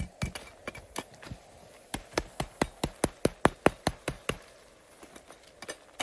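Knife chopping on a cutting board: quick, even strokes about five a second, in two runs with a short break after the first second, stopping about four and a half seconds in.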